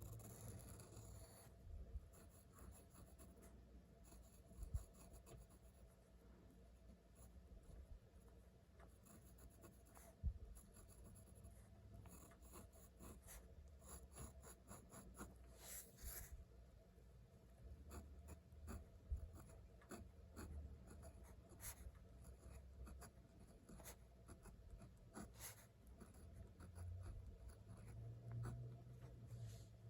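Pen writing by hand on paper: faint scratching in many short strokes with small pauses between them, as Japanese characters are written, plus an occasional louder tick of the pen.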